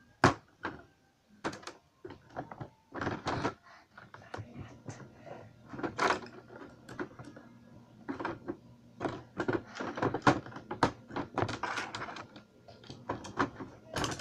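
Lego bricks clicking and clattering as pieces are handled and pressed together: an irregular string of sharp plastic clicks and knocks, with a louder knock just after the start.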